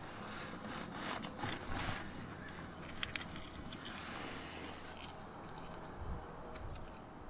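A hand rummaging under a car seat, scraping and rustling over the carpet, with a few sharp crinkles from a crumpled foil condom wrapper.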